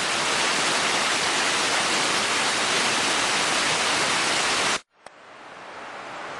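Waterfall rushing in a loud, even hiss that cuts off abruptly about five seconds in; a fainter steady hiss then fades up.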